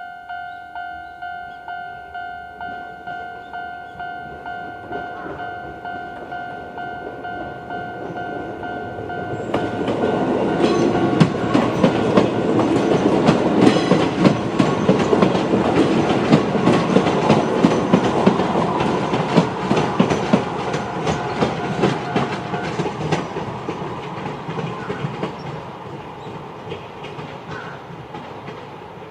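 A Japanese level-crossing warning bell, the old-style standard electronic tone, dinging about twice a second. About a third of the way in a Chichibu Railway 5000 series electric train arrives and passes through the crossing, its wheels clattering over the rail joints and drowning the bell. The bell stops about three-quarters of the way through and the train noise fades away.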